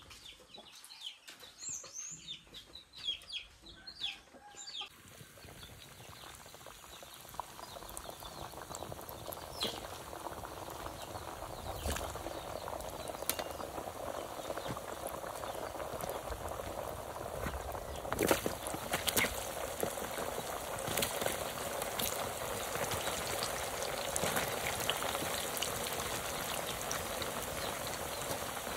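A few chicken clucks in the first few seconds, then hot oil sizzling steadily in a pan as slices of taro root deep-fry over a wood fire, growing louder, with scattered sharp pops and crackles.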